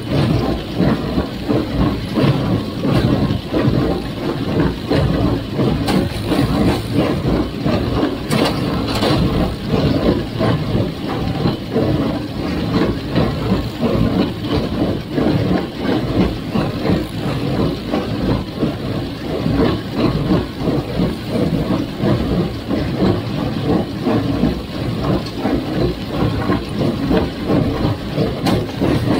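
Farmall 350 gas tractor running under load while powering a John Deere 348 square baler, with a steady, fast, rhythmic mechanical clatter from the baler.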